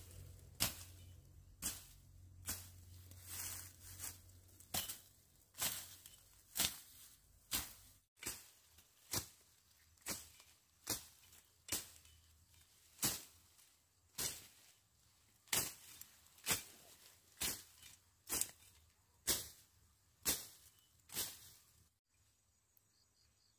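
A hand tool striking over and over in a steady work rhythm, about one sharp, hissing stroke a second.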